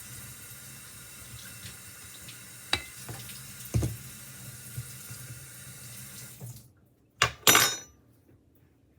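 Steady rush of water running from a tap, with a knock and a thud partway through; the running stops abruptly about six and a half seconds in, followed by two sharp knocks in quick succession.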